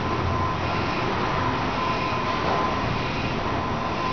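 Thyssen-MAN inclined traction elevator car running along its sloped rails: a steady rumbling ride noise with a thin, constant whine throughout.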